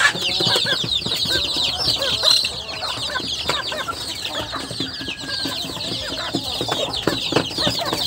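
A crowd of young chickens peeping at once: a dense, continuous chorus of many short, high, overlapping chirps.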